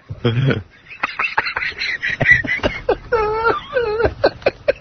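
People's voices making short sounds with no words, with a high, wavering voice about three seconds in.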